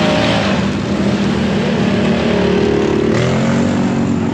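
ATV engine running and revving, its note rising and falling, held higher for about a second before dropping back.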